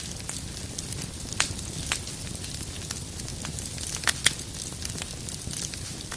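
Wood fire burning in a fireplace: a steady low rumble and hiss of the flames with scattered sharp crackles and pops, two louder pops about four seconds in.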